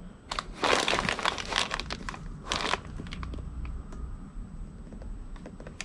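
Plastic packaging crinkling and crackling as a small boxed product is handled over bubble wrap, heaviest in the first two seconds, with another short burst a little later, then lighter crackles.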